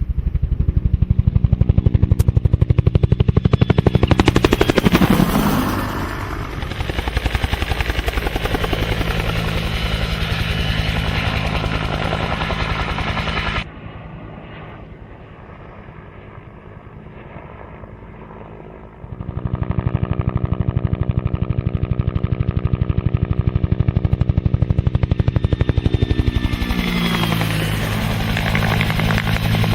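Helicopter rotor chopping in a steady rhythmic beat. The sound drops off sharply about halfway through and swells back to full strength a few seconds later.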